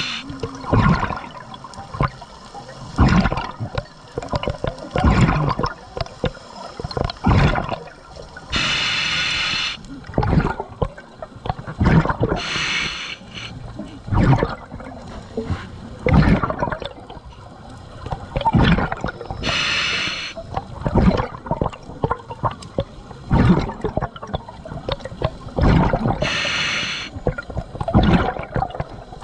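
Scuba diver breathing through a regulator underwater: a hissing inhale through the demand valve about every several seconds, with bubbling, gurgling exhalations between them.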